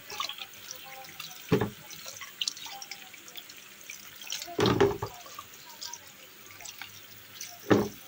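Kitchen tap running onto wild mushrooms as they are rinsed by hand. Three short, louder splashes come about a second and a half in, near the middle and near the end.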